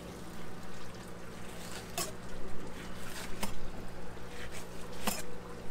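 Blackfin tuna fillets being handled on a concrete fish-cleaning table, with three sharp clicks or knocks about two, three and a half, and five seconds in. Behind them are a steady low hum and trickling water.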